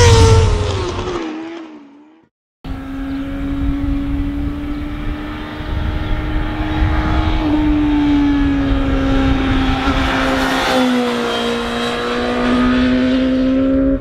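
The falling tail of an intro sound effect, a brief silence, then a Suzuki GSX-S750's inline-four engine running at a steady cruising pace, its note easing down slightly in pitch about two-thirds of the way through.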